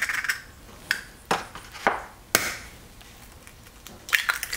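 Eggs being cracked over a stainless steel mixing bowl: a handful of sharp taps and shell cracks in the first two and a half seconds, then a quick cluster of clicks about four seconds in.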